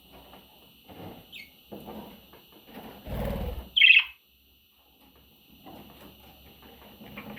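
Pet budgerigar chirping: soft scratchy chatter with one loud, sharp, falling chirp about four seconds in, just after a low muffled noise.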